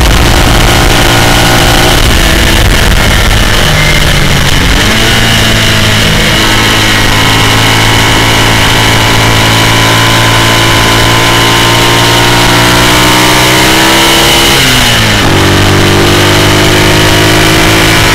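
A BMW flat-twin racing sidecar engine running hard, heard from on board with heavy wind noise on the microphone. Its pitch climbs steadily through the gears, falls and rises again with gear changes a few seconds in, and drops sharply about 15 seconds in before pulling again.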